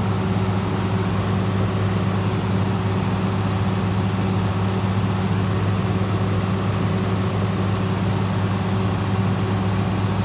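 Fire engine's engine running steadily with a deep hum, driving its pump to feed the deck gun, over a steady rushing hiss of the water stream.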